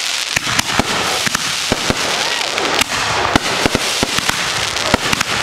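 Consumer fireworks going off in rapid, irregular succession: many sharp bangs, several a second, over a steady hiss.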